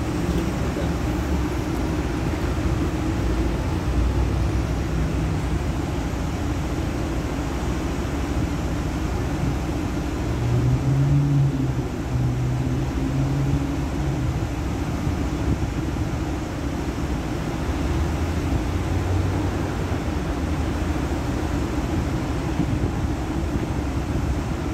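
Long Island Rail Road Kawasaki M9 electric train at the platform, its onboard equipment humming steadily. A low drone rises and fades twice, once near the middle and again a little later.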